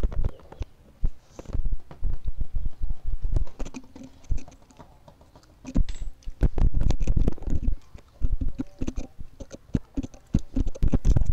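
Close-up handling noise of the recording device being moved: a run of low thumps, knocks and scrapes, quieter for a moment about two seconds in and again around four to five seconds in.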